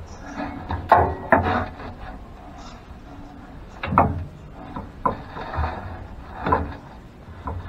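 Steel PTO driveshaft yoke being handled and worked at a rotary cutter's gearbox input: a handful of sharp metal clanks and knocks spread through, loudest about a second in and at about four seconds, with rubbing and scraping between.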